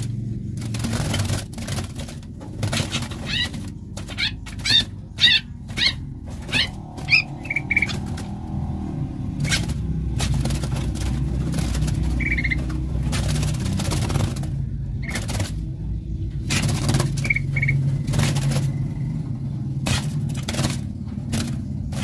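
A metal wire bird cage clicking and rattling over and over as a bird is caught inside it, with short high chirps from bulbuls scattered through. The rattling is densest in the first half. A steady low hum runs underneath.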